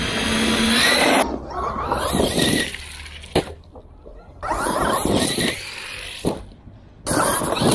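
Traxxas E-Revo 2 RC car's electric motor and drivetrain whining in several bursts, rising and falling in pitch as it speeds up and slows, with rushing noise from the tyres. A single sharp knock comes about three and a half seconds in.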